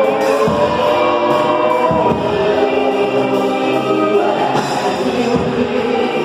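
Gospel worship band playing, with a group of voices singing together over the instruments.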